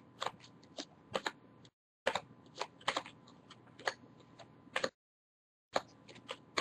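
Baseball cards handled and flipped through one by one, making irregular small clicks and taps as card edges knock and slide. The sound cuts out completely twice, briefly.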